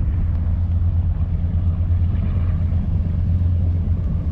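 Tour boat's engine running with a steady low drone.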